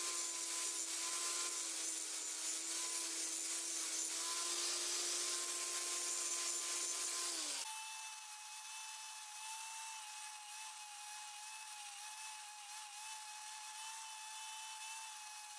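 Electric angle grinder with a grinding disc notching a steel ATV lower A-arm: a steady motor whine over the hiss of the disc cutting metal. About seven and a half seconds in, the sound changes suddenly to a quieter, higher-pitched steady tool whine.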